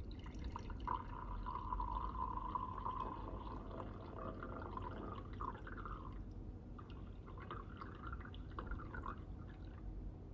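Liquid being poured into a vessel, the pitch of the filling rising slightly as it fills, then a second, shorter and more broken pour about seven seconds in.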